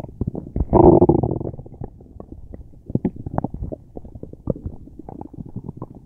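Human stomach rumbling and gurgling: a loud growl about a second in, then a long run of small irregular pops and bubbling.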